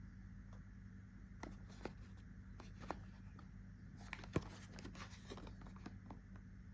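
Perfume packaging being handled: scattered small clicks and taps with a brief rustle, the sharpest tap a little past the middle, over a steady low hum.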